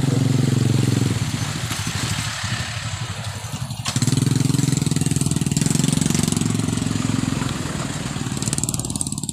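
A motor vehicle engine running nearby at low revs, its steady drone rising and fading twice, over constant wind and road noise.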